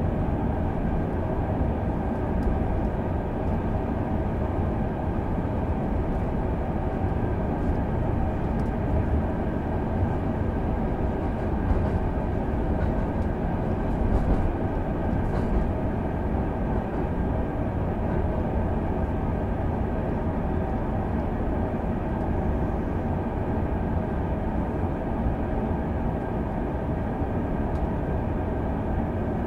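Steady running noise of an electric train heard inside the passenger car: a constant low rumble of wheels on rail, with a faint steady hum above it.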